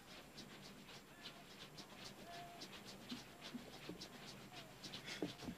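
Faint background ambience: a low steady hum with scattered soft ticks and a couple of brief animal-like calls.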